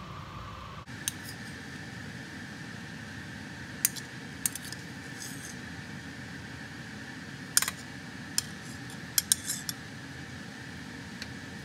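Scattered sharp clinks and taps of a plate and utensils against a skillet as chicken breasts are laid back into a creamy mushroom sauce, over a steady background hum.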